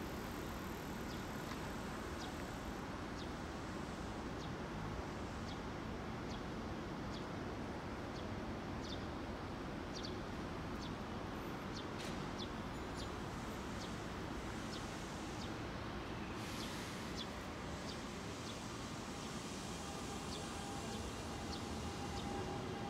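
Railway station platform ambience: a steady background hum with short high chirps repeating every second or so. Near the end a faint steady whine comes in as a train approaches.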